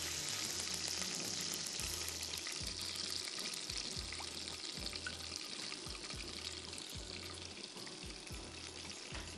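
Something sizzling in a pan on a gas stove, the hiss slowly fading away, under background music with a steady bass beat.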